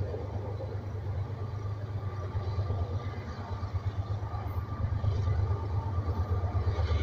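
Low, steady rumble of a diesel-hauled freight train, growing gradually louder.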